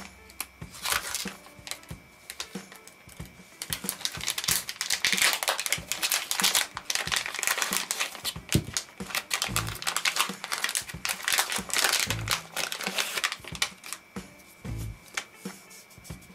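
Foil-backed plastic zip-lock pouch crinkling and rustling as it is pulled open and emptied. The rustle is thickest in the middle and thins out near the end, over background music with a low beat.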